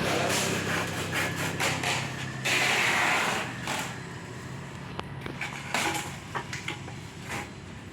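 A steady motor hum that fades out about three and a half seconds in, with scattered knocks and scrapes of things being handled.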